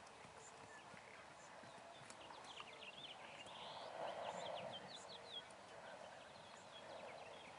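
Faint hoofbeats of a Mustang mare moving on arena sand, with a string of short high chirps around the middle.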